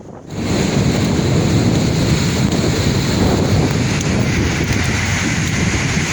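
Sea waves washing steadily, with wind buffeting the microphone. The sound drops out briefly at the very start and is back within half a second.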